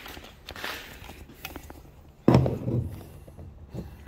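Shuffling and light handling noises with a few small clicks, then one sudden loud, low thump about two seconds in that dies away within about half a second.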